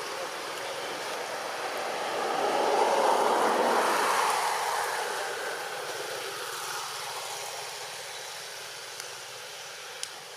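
A passing vehicle, swelling to a peak about three to four seconds in and then slowly fading away.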